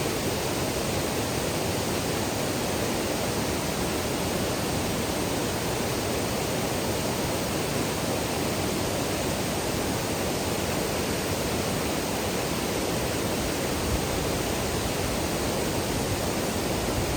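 Rushing white water of a river falls: a steady, unbroken roar of falling and churning water.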